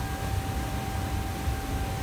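Steady roar of a commercial kitchen's gas wok range and overhead extraction hood, a constant rushing noise with a low rumble and a thin steady hum running through it.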